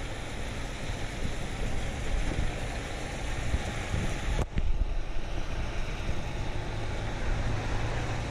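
Wind noise on the microphone over the steady low rumble of a moving vehicle. The sound changes abruptly about four and a half seconds in, and a low hum rises near the end.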